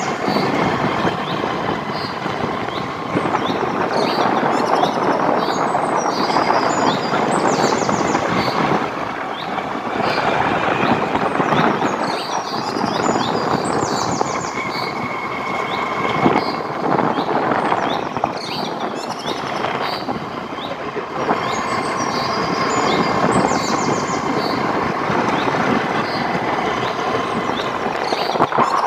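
Steady rushing outdoor noise with birds chirping over it again and again.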